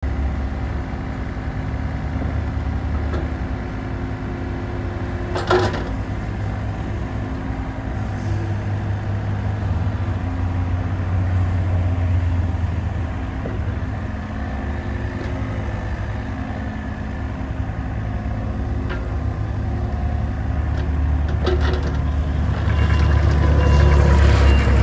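Kobelco mini excavator's diesel engine running steadily while the hydraulics work the boom, arm and bucket; the engine note swells under load in places, loudest near the end. A single sharp metallic clunk comes about five and a half seconds in, with a few lighter knocks around twenty-one seconds.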